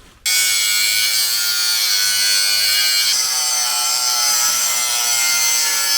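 Electric power tool cutting the excess length off a metal bar, starting abruptly and running with a steady high whine whose tone shifts about three seconds in.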